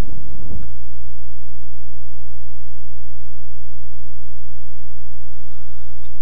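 Steady electrical mains hum with hiss on the recording, picked up by the narrator's microphone setup between sentences.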